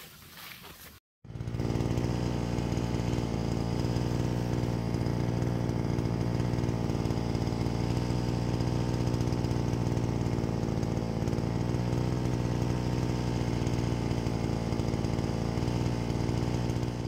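Brush cutter engine running at a steady, constant speed while clearing grass. It starts abruptly about a second in and holds one even pitch throughout.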